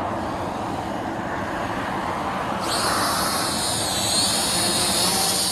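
SG106 mini drone's small motors and propellers spinning up about halfway through, a high whine that wavers in pitch as it hovers, over steady wind noise on the microphone.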